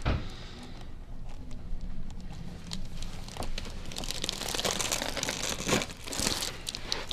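Rustling and crinkling as a patient is handled and shifts on a chiropractic treatment table, with a few sharp clicks scattered through; the crinkling swells around the middle and again near the end.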